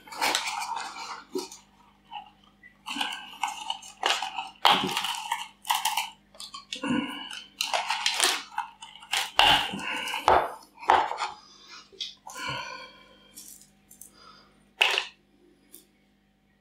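Artificial grass plant handled: pulled from its plastic pot and its plastic stems pulled apart, in a string of irregular rustles and crackles.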